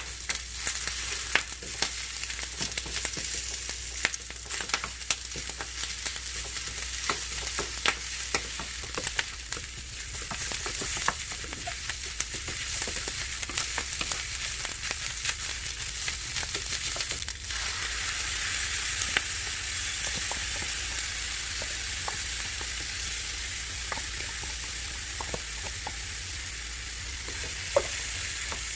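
Food sizzling as it fries in a pan, with scattered sharp clicks of a utensil stirring it. The sizzle gets louder and denser a little past halfway through.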